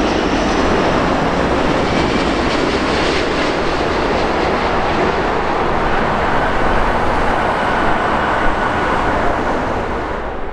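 Emirates Airbus A380-861 with four Engine Alliance GP7200 turbofans, passing low on final approach and touching down on the runway: a loud, steady rumble of jet noise that eases slightly near the end.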